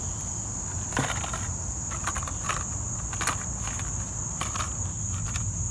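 Crickets chirring in a steady high chorus, with irregular rustles and clicks of plastic lure packaging and cardboard being handled.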